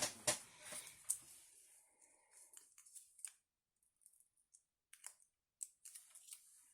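Craft materials handled on a desk: a brief rustle with sharp clicks in the first second, then scattered light clicks and taps.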